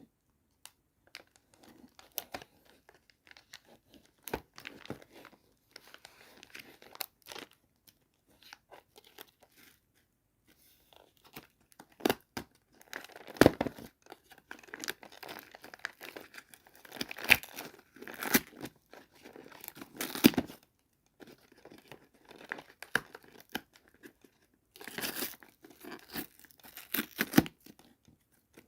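Toy doll-set packaging being unboxed by hand: irregular crinkling and tearing with scattered clicks, growing louder in several bursts through the second half.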